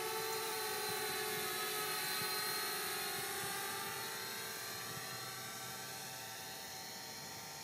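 Small foldable quadcopter's four propellers and motors whining steadily in flight, the sound slowly fading over the second half as the drone drifts away. The drone is low on battery and no longer answering the controls.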